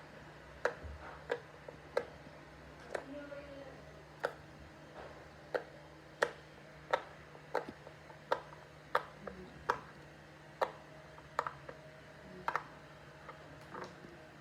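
Silicone pop-it fidget toy bubbles being pressed through, one sharp pop at a time, about one to two a second at an uneven pace.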